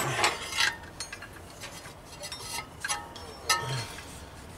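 Scattered light clinks and knocks as an old rubber V-belt is worked off a Chevy 4.3 engine's accessory pulleys by hand, with the engine stopped.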